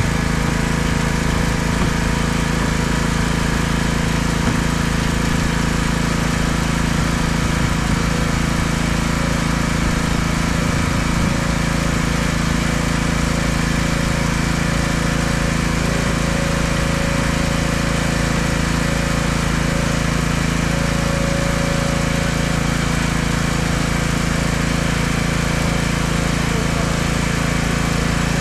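Pressure washer's engine running steadily at a constant speed, an even drone that does not change.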